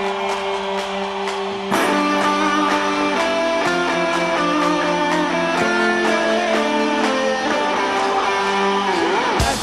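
Live band playing an instrumental passage: sustained guitar chords changing every second or two over light, regular cymbal ticks, growing louder about two seconds in.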